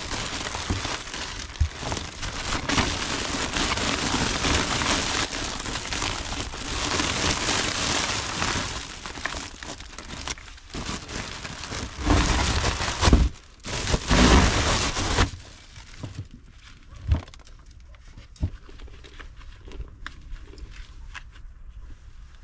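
A woven polypropylene sack crinkles and rustles loudly as it is handled and pulled open, with the loudest bursts shortly before it stops. A few light knocks follow as the pump and its cable are set down.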